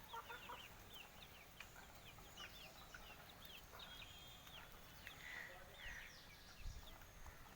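Kadaknath chickens calling faintly: many short, high chirps, several a second, with a few lower clucks.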